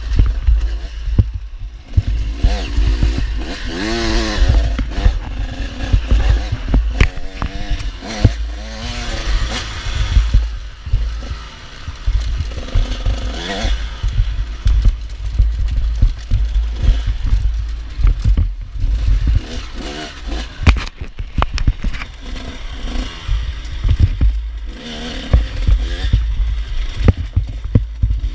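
Youth motocross bikes racing on a dirt track, their engines revving up and dropping off in repeated swells as riders pass and shift, over a constant low rumble.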